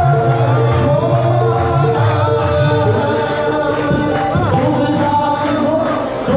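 Devotional music: a sung hymn over steady held tones and a low drum beat, which drops out about halfway through.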